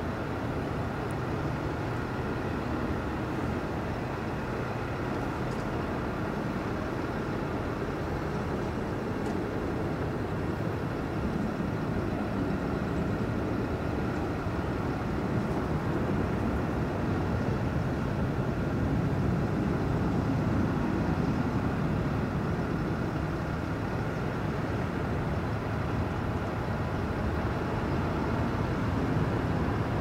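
Steady low outdoor rumble, swelling slightly about two-thirds of the way through, with faint thin tones above it.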